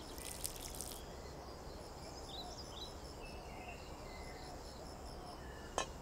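Faint outdoor ambience: a steady low hiss with a high, evenly pulsing insect chirr and a few small bird chirps a couple of seconds in. A single sharp click sounds just before the end.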